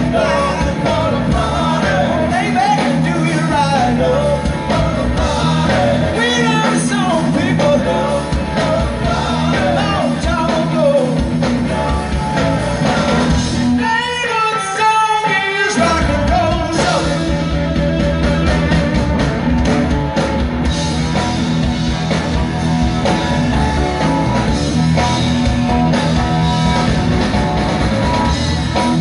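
Amplified live rock band playing with a lead singer, heard from the audience. About halfway through, the bass and drums drop out for about two seconds, then the full band comes back in.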